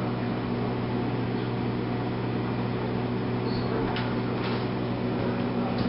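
A steady low electrical hum, with a few faint light knocks about four seconds in as a cat scrambles up into an open freezer.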